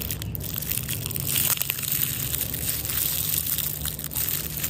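Slime being squished and pressed by hand: a steady run of small crackles and clicks.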